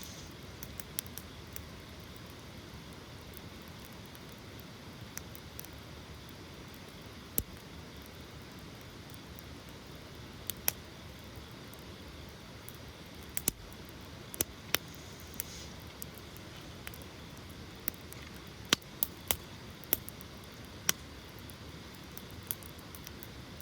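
Campfire burning: irregular sharp crackles and pops of the burning wood over a steady soft hiss, with a thicker run of louder pops in the second half.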